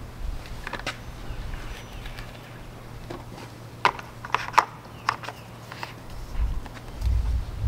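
Scattered light plastic clicks and taps as a plastic oil funnel is lifted out of the oil filler neck on top of a stopped Mercury 75 HP outboard and handled, with a cluster of sharper clicks about four seconds in.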